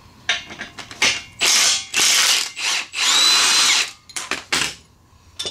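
Cordless impact gun running in three short bursts of about a second each. The last burst carries a steady motor whine that winds up at the start and winds down at the end. A few light metal clinks follow.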